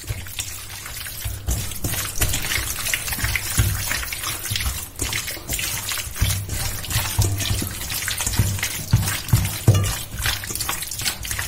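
A bare hand kneading and squelching cubed chicken through a yogurt and olive-oil marinade in a stainless steel bowl: continuous wet mixing, with many irregular small squelches and splats.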